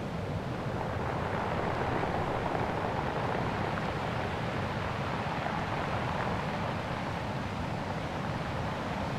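Steady wind noise on the microphone over open water: an even low rumble with a hiss, with no distinct engine tone.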